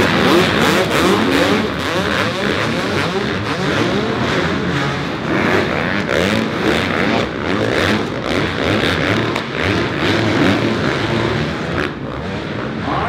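Several dirt bike engines revving up and down, rising and falling in pitch over and over as the bikes race around a dirt track.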